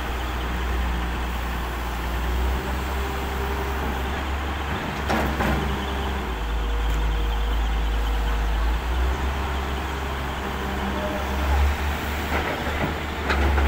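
Hitachi wheeled excavator's diesel engine running steadily under working load as the arm swings and dumps, with a brief knock about five seconds in and another near the end.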